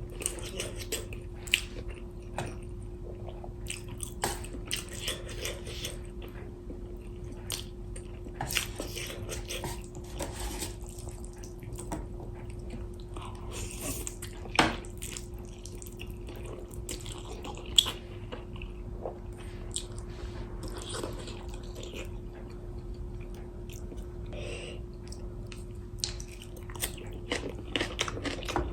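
Close-up mukbang eating sounds of spicy instant noodles and fresh kimchi: chewing and biting with wet mouth noises and many small clicks and crunches. Two sharper clicks stand out, about 15 and 18 seconds in, over a steady low hum.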